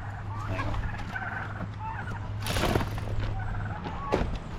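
Penned quail chirping and chattering in short, wavering calls, with a brief rustle a little past halfway.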